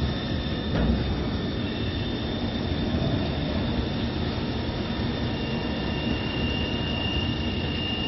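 GFL6 CNC lathe running: a steady machine noise with a high whine throughout, joined by a second, slightly lower whine about five seconds in.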